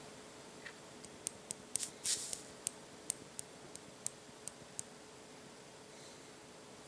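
A quick run of about a dozen light, sharp clicks over a few seconds, from the buttons of an electronic vape mod pressed while the coil's resistance is read, over a faint steady hum.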